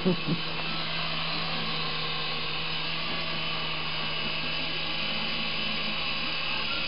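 Small electric rotor motors of a Syma S107G-type mini coaxial RC helicopter whirring steadily while it hovers, a constant low hum under a high whine.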